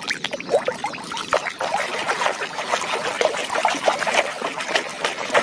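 Water splashing and trickling irregularly as a plastic toy animal is washed by hand in a tub of water.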